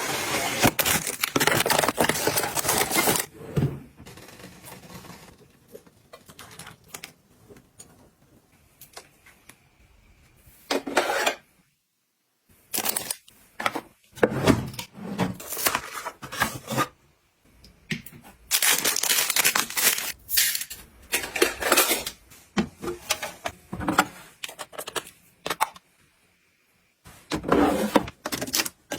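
Household items being handled and set down: irregular clicks, clatters and rustling of packaging in bursts, with brief pauses between them.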